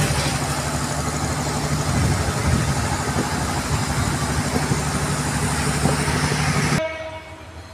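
Diesel engine of a stationary passenger train running at a steady idle with an even low hum. It cuts off suddenly about seven seconds in, leaving quieter background noise.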